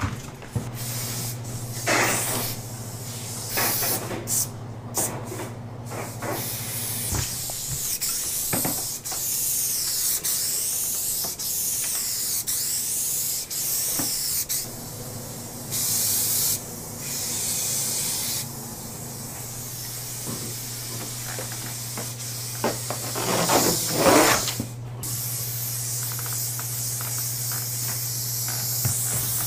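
Aerosol spray paint can hissing in on-and-off bursts of varying length as paint is sprayed onto a wall in sweeping strokes.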